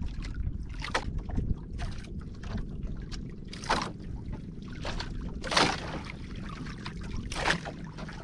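Water splashing at a small paddle boat about every two seconds, over a steady low rumble of wind on the microphone.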